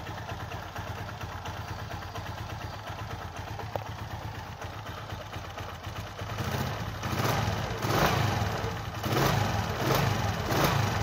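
Small motorcycle engine with a Tokaido carburetor idling steadily, then revved by hand at the throttle linkage in a series of short blips from about six seconds in. The revs pick up with a slight hesitation off idle, which the mechanic judges minor and later cures by opening the pilot screw.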